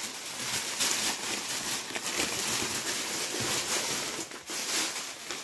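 A plastic shopping bag rustling continuously as groceries are handled and taken out of it.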